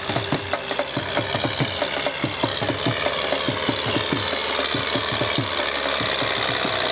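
Diesel tractor engine chugging under a heavy load, a rapid even knocking pulse at about seven beats a second, growing slightly louder as it comes closer.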